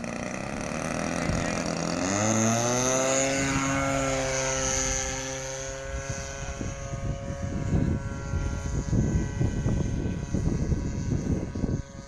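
DLE 20cc single-cylinder two-stroke gasoline engine on an RC model plane, opened up from idle to full throttle for takeoff. Its pitch rises for about two seconds, then holds steady as the plane climbs out. A loud irregular low rumble sits under it in the second half.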